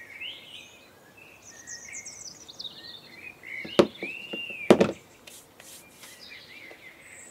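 Two sharp knocks about a second apart as aluminium engine chassis parts are set down on a bench mat, with birds chirping steadily in the background.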